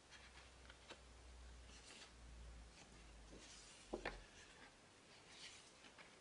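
Faint paper handling as photobook pages are turned and a fold-out page is opened: soft rustles and slides of paper. Two sharp taps a little past halfway are the loudest sounds.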